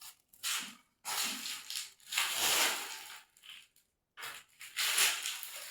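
A run of about six short crunching, scraping noises with brief gaps between them, from hand work on plumbing.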